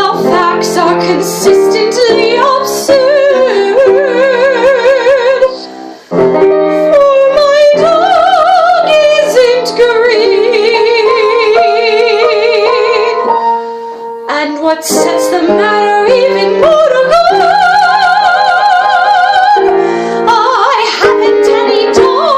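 A woman singing in a trained classical style with a wide vibrato, accompanied by piano, with a short break about six seconds in and another about fourteen seconds in.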